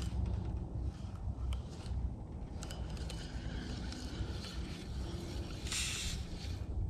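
Low wind rumble on the microphone, with scattered light clicks and scrapes from a hand working a spinning rod and reel. A short rustling burst comes near the end.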